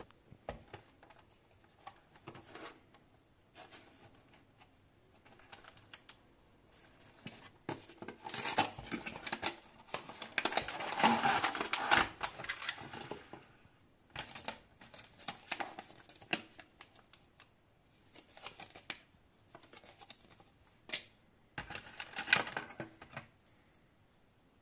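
Cardboard box and clear plastic tray being opened and handled: scattered clicks, scrapes and rustles, busiest and loudest about halfway through as the tray slides out of the box.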